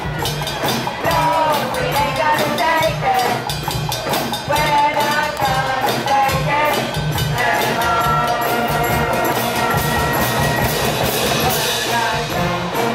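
A small street band of flute, trumpets, trombones and a drum playing a tune over a steady beat. About halfway through, the melody changes to longer held notes.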